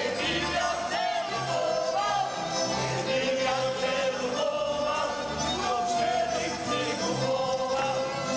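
Slovak folk song: voices singing a sustained melody together over instrumental accompaniment with a steady, even bass beat.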